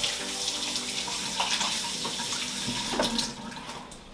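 Water running from a kitchen tap into the sink, starting just before and easing off near the end, with a couple of light knocks.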